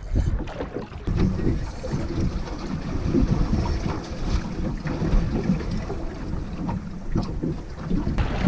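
Wind buffeting the microphone aboard a small boat at sea: an uneven, gusting rumble, with the sea washing against the hull beneath it. It gets louder about a second in.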